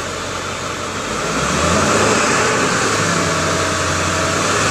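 Ford 7.3-litre Power Stroke V8 turbo-diesel revved up from idle about a second in and held at higher revs, then settling back toward idle near the end.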